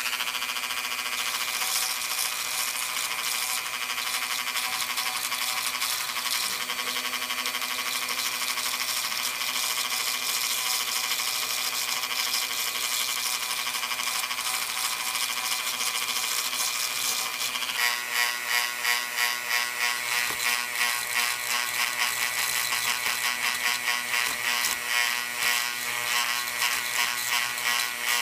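Dremel rotary tool with a fine pointed bit running at high speed, a steady whine as it grinds sandy matrix off a fossil scallop shell. About eighteen seconds in its pitch drops a little and the sound begins to pulse a few times a second.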